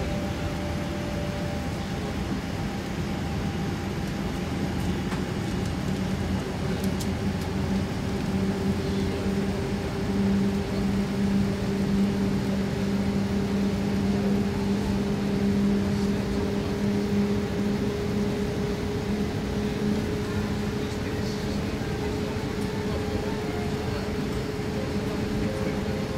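Boeing 787's Rolls-Royce Trent 1000 engine heard from inside the cabin during start-up: a steady low hum with a whine that comes in about six seconds in and slowly rises in pitch as the engine spools up.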